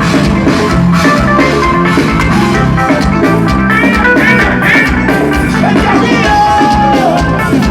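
Live forró band music with a steady drum beat and bass, playing an instrumental stretch with no clear singing.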